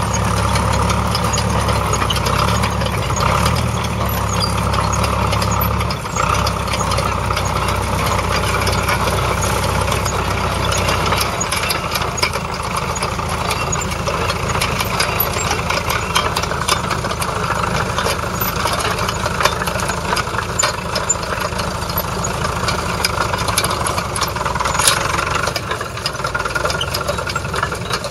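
1955 Bristol 22 crawler tractor's 2.2-litre four-cylinder petrol/TVO engine running steadily while pulling a plough, with frequent light rattles. The low rumble lessens about eleven seconds in.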